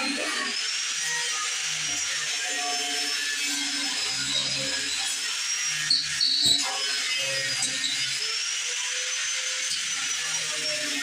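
Angle grinder grinding steel, a steady high whine over a hiss of grinding that sags and recovers as it is pressed into the metal. A short loud clatter comes about six seconds in.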